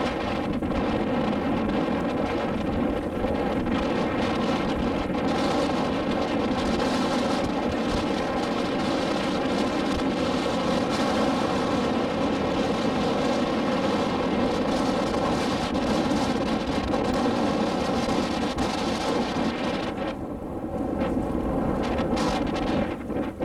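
A motor launch's engine running steadily under a broad rushing noise. The high part of the rush drops away briefly about twenty seconds in.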